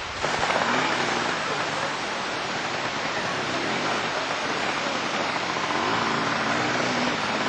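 Trial motorcycle engine revving up and down as the bike climbs through a rocky stream, over the steady rush of running water.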